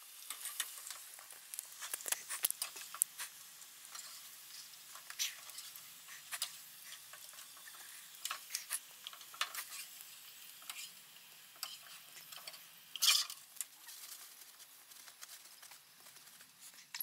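Hot vegetable oil sizzling in a frying pan: a steady sizzle with scattered crackles and pops throughout, and one louder noise about thirteen seconds in.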